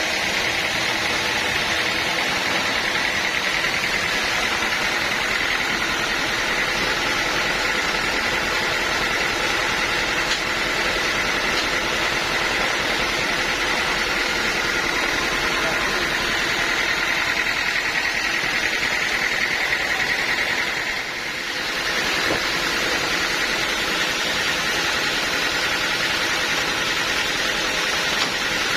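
Bandsaw sawmill running steadily, its engine and blade making a continuous machine noise with a steady high tone. The noise dips briefly about 21 seconds in, then resumes.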